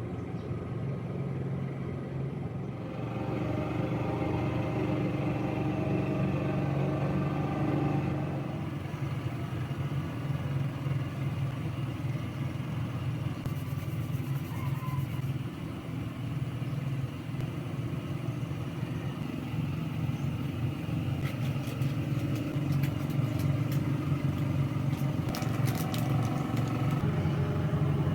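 Small engine of a farm grass-cutting machine running, its hum rising and falling as it works, with scattered sharp ticks in the later part.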